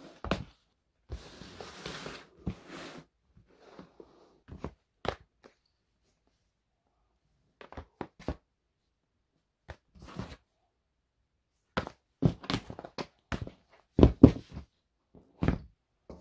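Flat cardboard boxes of wooden model kits handled, shuffled and set down on a table: scattered taps and knocks with some sliding scuffs, then a cluster of louder knocks near the end.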